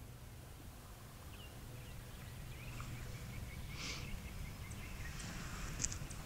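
Faint early-morning woodland ambience: a few short, scattered songbird chirps over a low steady rumble, with a couple of brief rustles.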